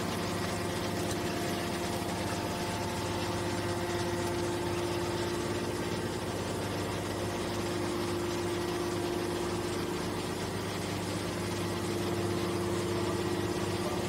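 Hydraulic scrap metal baler's power unit, an electric motor driving the hydraulic pump, running with a steady hum while the ejector cylinder pushes a compressed bale out of the chamber.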